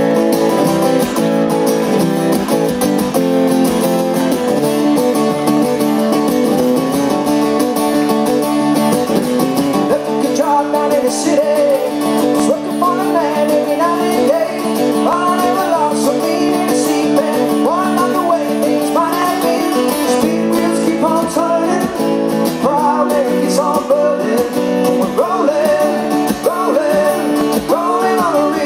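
Live acoustic duo: two acoustic guitars strummed together, with a man singing over them.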